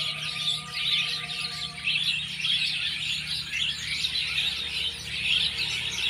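A flock of nectar-feeding birds in flowering Xanthostemon trees, keeping up a dense, continuous chatter of high squeaky calls.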